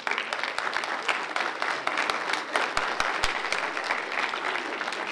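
Audience applauding: many hands clapping in a dense patter that starts suddenly and goes on steadily.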